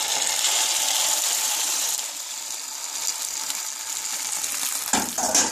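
Shredded cabbage, egg and sardine omelet mixture poured into hot olive oil in a stainless steel frying pan, sizzling loudly as it hits the oil and settling to a steadier, softer sizzle after about two seconds.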